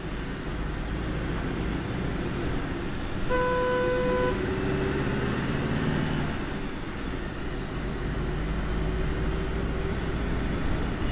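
Steady low engine and road rumble inside an Eicher-chassis sleeper bus moving through town traffic. A vehicle horn sounds one steady note for about a second, a little over three seconds in.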